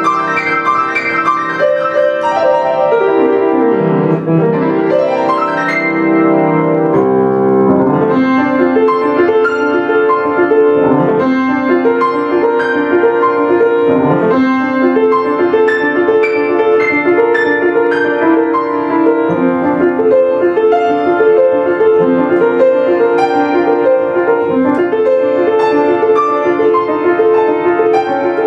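Grand piano played solo: fast runs sweeping up and down the keyboard in the first several seconds, then quick repeated figures in the middle range over lower notes.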